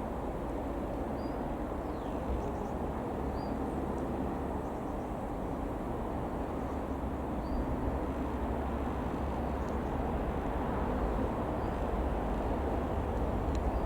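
Distant single piston engine of a Robin DR.400-180 light aircraft, a steady drone that grows slightly louder toward the end, with wind rumbling on the microphone. A few faint high chirps are heard.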